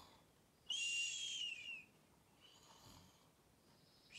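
A person imitating a sleeper's soft snoring as a sound effect: a high whistled breath out, falling slightly in pitch and lasting about a second, then a faint breath in.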